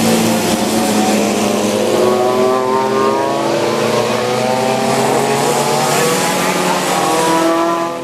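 Racing car engines at high revs, one rising slowly in pitch through a long acceleration, over a steady hiss.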